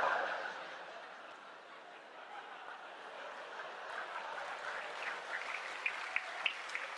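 Theatre audience laughing and applauding after a punchline: a wave of laughter that is loudest at the start and fades over about a second, then steady laughter and clapping, with sharper single claps standing out in the last few seconds.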